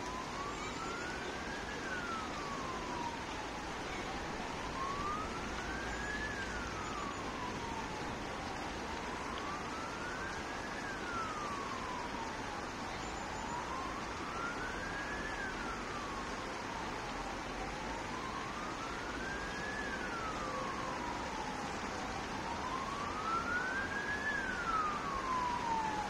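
Emergency vehicle siren wailing: one tone rises and falls slowly, about once every four and a half seconds, over steady background noise.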